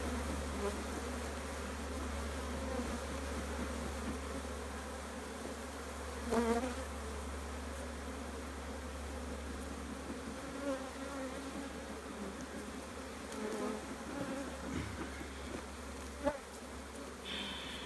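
Honeybees buzzing around an open hive: a continuous drone of many bees, with single bees flying close by now and then, the loudest about six seconds in.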